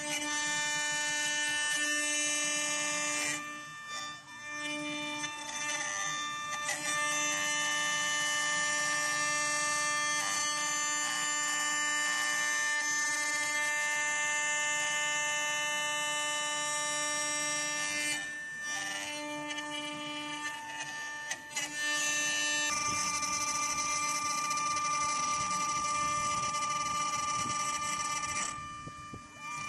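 ART1325R CNC router's spindle whining steadily as its bit carves a wooden blank turning on the rotary fourth axis, the level dipping briefly a few times.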